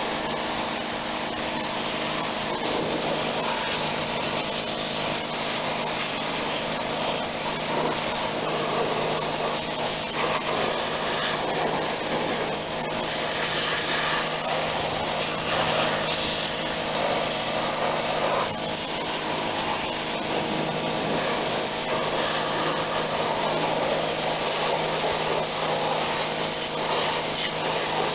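Sun Joe SPX 3000 electric pressure washer running steadily, its electric motor and pump humming under the hiss of the high-pressure water jet blasting grease off a metal garden tiller.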